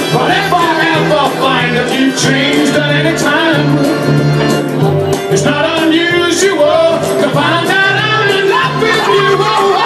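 Karaoke: a man singing into a microphone over a loud recorded backing track with a steady, regular beat.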